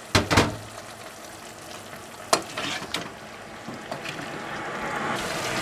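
Chicken adobo sauce bubbling as it simmers in a pot, reducing and thickening, the bubbling growing louder near the end. A ladle stirring it knocks against the pot twice at the start and twice more in the middle.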